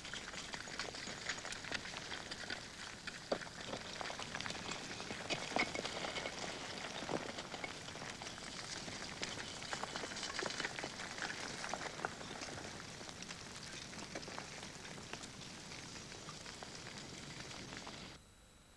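Crackling of an active lava flow: dense, irregular clicks and sharp cracks over a steady hiss. It cuts off abruptly near the end.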